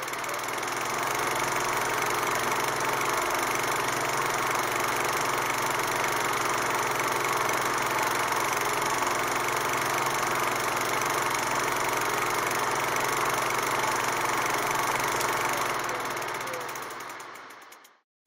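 Steady mechanical whirring noise with a faint low hum. It fades in at the start and fades out near the end.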